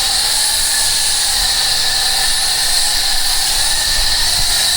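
Foam sprayer blasting truck-and-tractor wash foam onto farm equipment: a steady hiss.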